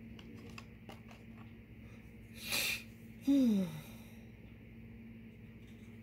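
A person's quick breath in, then a short, falling, pitched vocal sound like a sigh or a 'hmm', over a faint steady hum.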